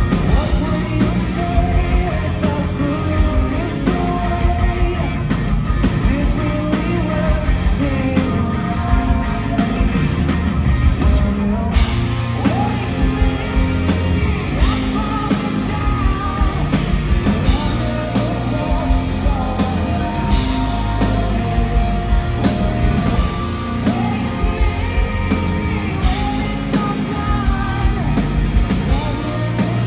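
Live rock band playing a hard rock song: lead vocals over electric guitars, bass and drums. It is heard from within the audience in a concert hall.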